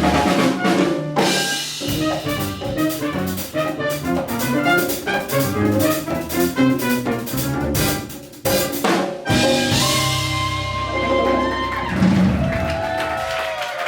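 Live Afro-Cuban Latin jazz band (trumpet, piano, upright bass, drum kit and hand percussion) playing a driving rhythmic passage, then, about nine seconds in, settling into a long held closing chord over a sustained bass note as the tune ends.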